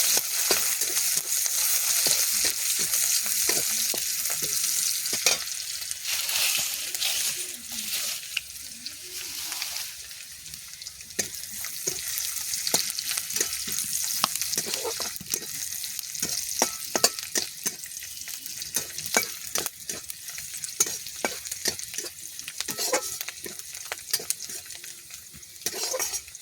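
Sliced onions and garlic sizzling in hot oil in a pan, stirred with a spatula that scrapes and taps against the pan. The sizzle is loudest at first and dies down after about ten seconds, while the stirring strokes continue.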